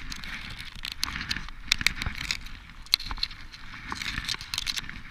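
Irregular crackles and clicks over a steady hiss while a hooked spotted seatrout is played on a taut line from a kayak: the rod, reel and line being worked against the fish.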